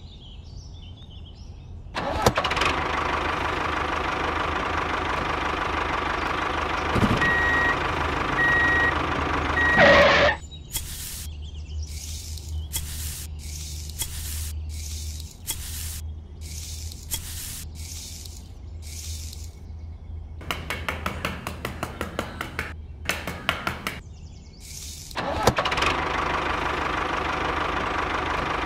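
Truck engine sound running steadily with a short repeated beeping, then a series of scraping strokes about one a second as a small shovel digs into sand. A fast run of rattling strokes follows, and the engine sound comes back near the end.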